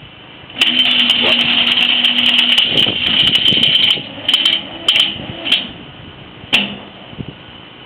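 Loud rattling and clattering with a steady low hum under it for about two seconds, then four shorter, separate loud bangs, the last near the end.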